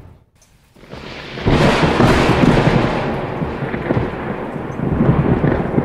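Thunder rolling over a steady rush like heavy rain: after a brief lull, a low rumble swells about a second in and keeps rolling loud.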